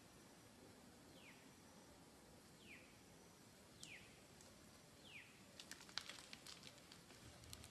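Faint outdoor quiet with a bird repeating a short, falling whistled note five times, about once every second and a half. Near the end comes a quick, scattered run of faint clicks and ticks.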